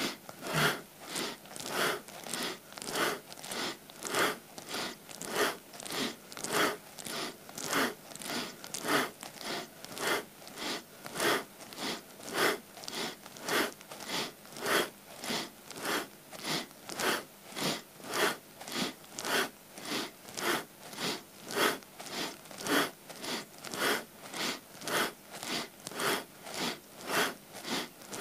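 A man's rhythmic, forceful breathing, in and out in steady alternation at about two breaths a second. The breath is paced by Kundalini spinal flexes in rock pose: in as the spine flexes forward, out as it flexes back.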